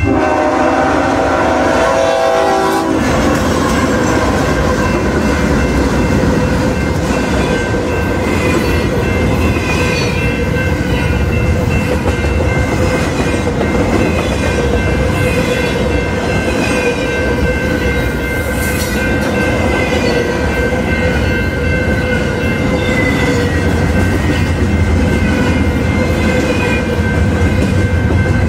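Freight locomotive's horn sounds a chord for about the first three seconds as it reaches the crossing, then a double-stacked container train rolls past with loud, steady wheel and rail noise. A grade-crossing bell rings steadily underneath.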